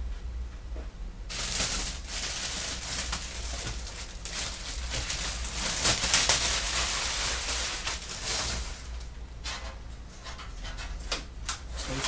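Packaging being pulled off a PC case: several seconds of steady rustling hiss, then a run of short crackles and taps near the end.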